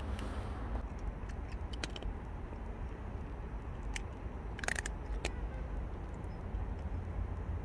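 A cat crunching dry kibble from a hand, a few sharp crunches about two seconds in and a cluster about four to five seconds in, over a steady low rumble.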